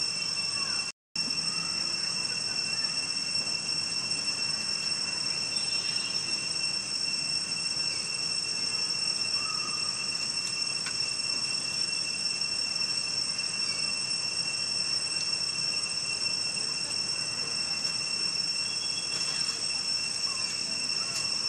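Insects droning outdoors in a steady, high-pitched whine that holds one pitch throughout, cutting out completely for a moment about a second in.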